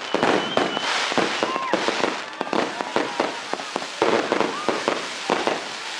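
Consumer fireworks cake of about 3.2 kg firing: a rapid series of bangs and crackling bursts, with a few short whistle-like tones among them.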